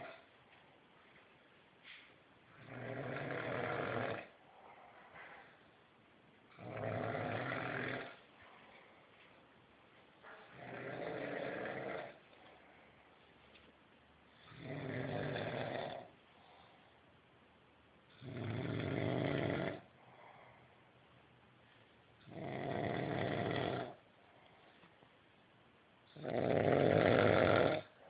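Someone asleep and snoring: seven slow, regular snores about every four seconds, each lasting a second and a half, with the last one the loudest.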